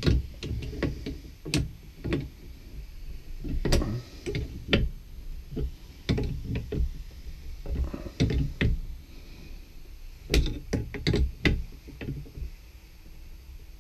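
Irregular knocks, clicks and clunks of hand tools and metal fittings being handled during plumbing work on washing machine supply valves, with small bursts of several quick knocks.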